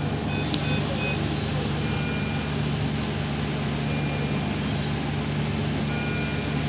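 Steady hum of ICU equipment with short, high electronic beeps every couple of seconds from patient monitors or the ventilator.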